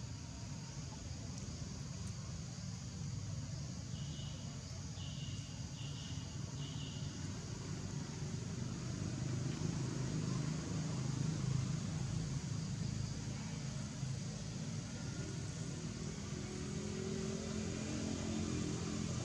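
Low, steady rumble of road traffic, swelling about ten seconds in and again near the end. Four short high chirps come about four to seven seconds in.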